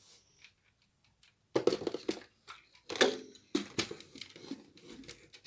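Plastic LEGO models being handled and set down on a shelf: irregular rustling with clicks and knocks in a few clumps, and a sharp click near the end.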